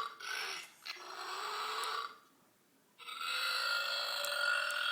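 Long, drawn-out burps, one after another: two of about a second each, then a short quiet gap and a much longer burp starting about three seconds in.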